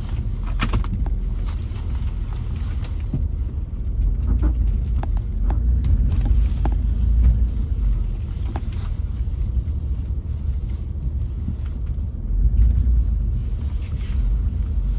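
Four-wheel-drive car running on an icy road, a steady low rumble with scattered clicks and knocks.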